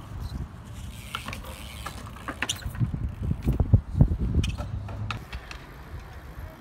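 BMX bikes riding on concrete: a low rolling rumble of the tyres with creaks and clicks from the bikes, and a louder run of knocks about three to four seconds in.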